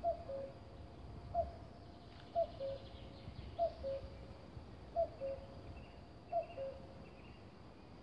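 Male common cuckoo calling its two-note cu-coo, the second note lower than the first, six times in steady succession at about one call every second and a quarter. Faint, high chirps of other small birds come and go behind it.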